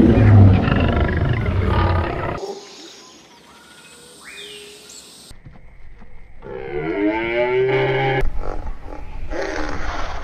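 A lion roars loudly for about the first two seconds. After a quieter stretch, a cow gives one long moo a little past the middle.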